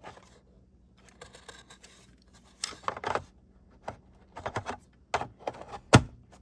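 Hands handling a moulded plastic packaging tray in its box: scraping, light clicks and taps, with a sharp knock about six seconds in as the box lid is pressed shut.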